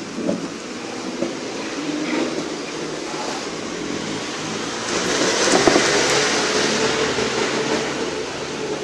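Heavy iron ball rolling over a hard floor as a dog pushes it along: a continuous rumble that swells loudest a little past the middle.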